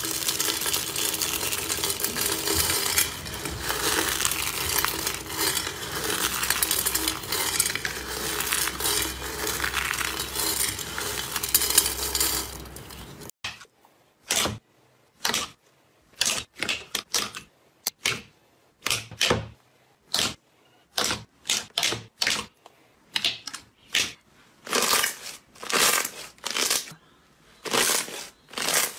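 Hands squeezing a mass of green noodle-like slime strands, a dense continuous crackling squish. About thirteen seconds in it gives way to thick white foamy slime being pressed by hand, short separate squishes one or two a second with silence between.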